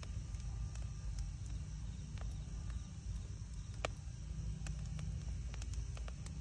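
Wood fire burning: a steady low rumble with sparse, sharp crackles and pops, one louder pop about four seconds in.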